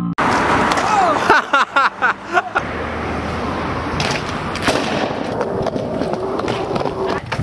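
Fixed-gear bike tyres rolling on pavement, with a few sharp knocks as the bike lands tricks. Wavering squeals sound in the first couple of seconds.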